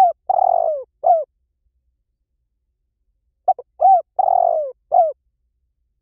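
Spotted dove cooing: two identical phrases, one ending about a second in and the next starting about three and a half seconds in. Each phrase is two short coos, a longer falling croo, then a short falling coo.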